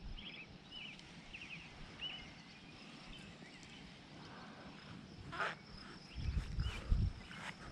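Quiet outdoor ambience with a small bird chirping in short repeated calls during the first couple of seconds. Near the end come a brief swish and a few low thuds of footsteps in grass.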